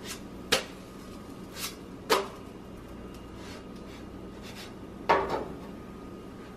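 A nonstick frying pan knocking and clattering as it is handled and set back down on a gas stove's burner grate. There are about five sharp knocks, each with a short ring, and a loud one about five seconds in as the pan lands on the grate.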